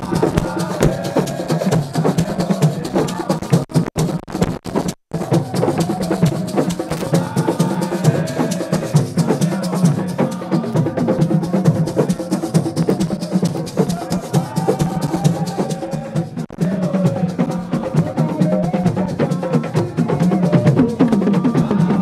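Sabar drums played in fast, dense strokes while a crowd sings, chants and claps along. The sound cuts out briefly twice, about four and five seconds in.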